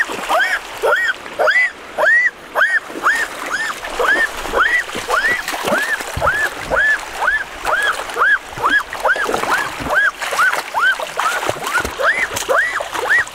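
Splashing in shallow water as a boy wades in and grabs fish by hand. Over it runs a steady string of short calls that rise and fall in pitch, about two a second.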